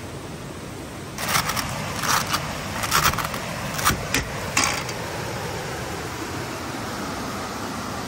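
A vehicle's rooftop side awning being swung out and opened: a run of irregular sharp clacks and scrapes from its aluminium arms and poles between about one and five seconds in, over the steady rush of a rocky river.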